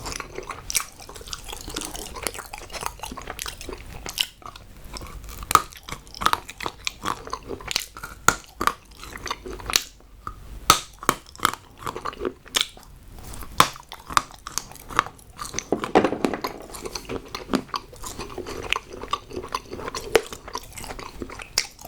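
Hard chocolate being bitten and chewed close to the microphone: a long run of irregular crunches and sharp snaps.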